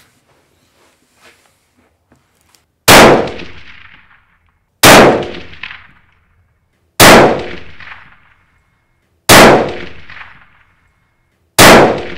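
Five rifle shots from a Ruger American bolt-action in 6.5mm Creedmoor, spaced about two seconds apart. Each one is a sharp crack that echoes away over a second or so.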